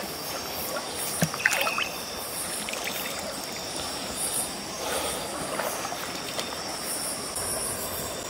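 Shallow river water trickling and splashing as a person wades and works in it, with a few sharper splashes about a second and a half in. A steady high chorus of night insects runs underneath.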